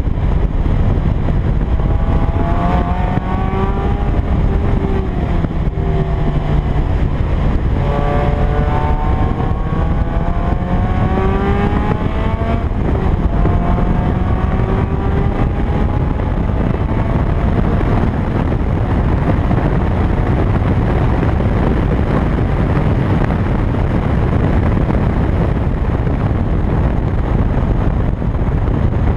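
2000 Toyota MR2 Spyder's stock 1ZZ 1.8-litre four-cylinder engine revving up in three pulls in the first half, its pitch rising each time and dipping in between. It is then lost under a steady rush of wind on the microphone.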